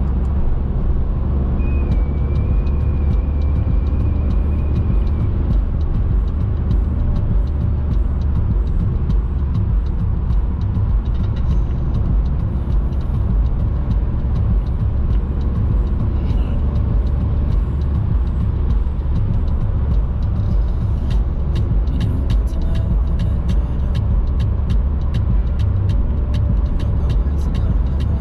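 Steady low rumble of a vehicle being driven, engine and road noise together, holding even throughout.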